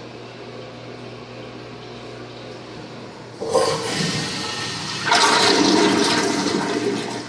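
Toilet flushing: a faint steady hiss of water, then, about three and a half seconds in, a sudden loud rush of the flush that swells louder about five seconds in and cuts off abruptly near the end.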